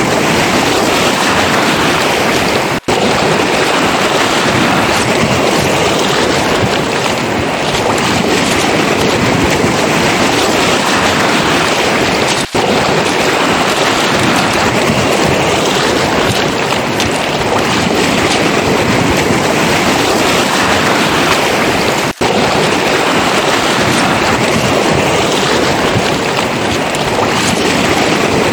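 Sea surf washing on a pebble beach: a loud, steady wash of noise with no clear rhythm, broken by three very short dropouts about ten seconds apart.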